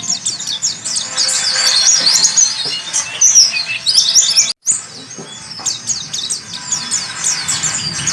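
White-eye (pleci) song: a dense run of rapid, high twittering chirps and trills with no pause, broken by a brief cut-out a little past halfway.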